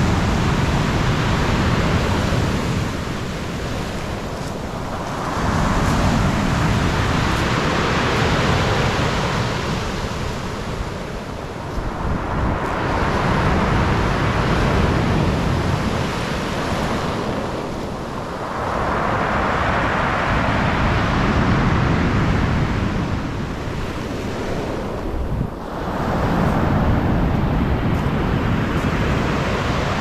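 Black Sea waves breaking on the beach, each surge swelling and washing back roughly every six to seven seconds.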